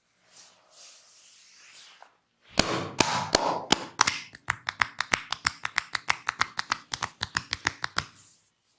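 Soft rubbing of hands on skin, then about two and a half seconds in a percussive hand-tapping massage begins: sharp slaps of the barber's hands on the body, ragged at first, then a steady rhythm of about five a second that stops shortly before the end.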